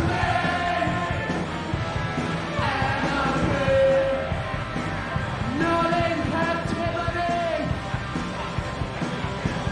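Punk rock song playing: a loud band with a sung vocal that holds drawn-out notes and slides between them.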